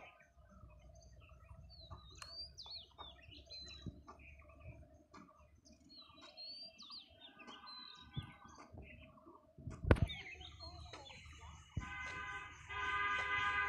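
Birds chirping and calling in short rising and falling notes, with a single sharp knock about ten seconds in. Near the end a steady, loud horn-like tone starts up and holds.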